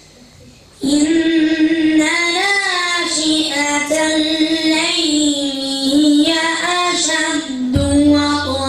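A boy chanting Quran recitation in melodic tajweed style into a microphone, holding long notes that glide and waver in pitch. The voice comes in about a second in, after a short pause, and a low hum joins it near the end.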